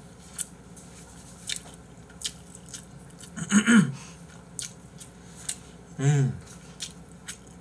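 People eating spaghetti with chopsticks: scattered wet mouth clicks and chewing, with a loud slurp and brief hum a little past the middle and another short hum about six seconds in.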